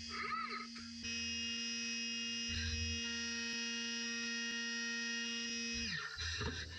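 Machine-tool spindle motor: a steady whine starts abruptly about a second in, holds constant speed, then winds down, its pitch falling, near the end.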